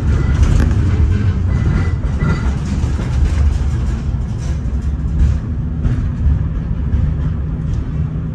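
LVS-86K tram rolling along the rails: a steady low rumble with wheel clicks as it crosses track joints and switches, and a few faint high tones in the first couple of seconds.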